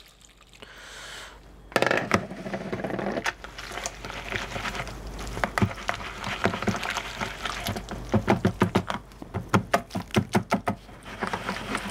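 A liquid is poured into a plastic bowl of flour, then a wire balloon whisk beats the wet loukoumades batter, clicking and scraping against the plastic bowl in quick, uneven strokes that get denser and more rhythmic near the end.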